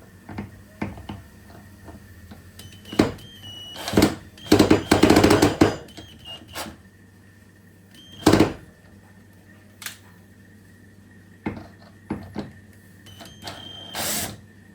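Irregular knocks and clicks of objects being handled, with a longer, louder noise lasting about a second midway and shorter ones about eight seconds in and near the end.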